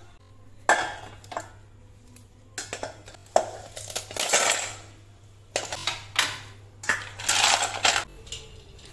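Ice cubes being knocked out of a freezer tray, clinking and clattering in a string of separate rattles.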